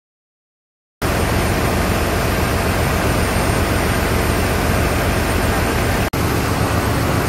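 Ship's engine-room machinery noise: a loud, steady drone with a heavy low hum, starting about a second in and dropping out for an instant near six seconds.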